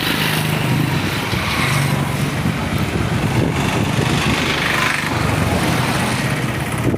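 Street traffic: vehicle engines running and passing, with a steady roadway hiss.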